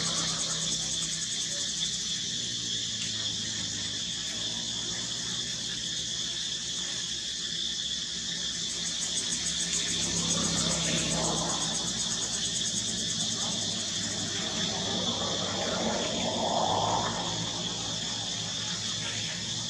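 Steady outdoor insect chorus, a continuous high-pitched buzzing trill that holds unchanged throughout.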